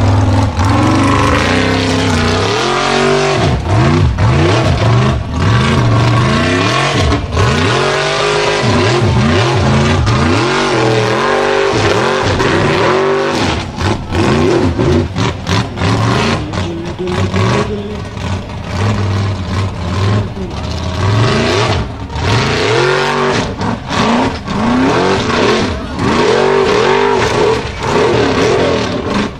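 Formula Offroad buggy's engine revving hard again and again as it claws up steep dirt banks. The pitch sweeps up and falls back in quick repeated surges, with short dips where the throttle is lifted.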